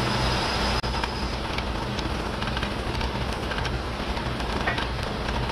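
Steady industrial hum and rumble of a workshop, with scattered light metallic clicks as a wrench turns the turnbuckle of a variable spring hanger.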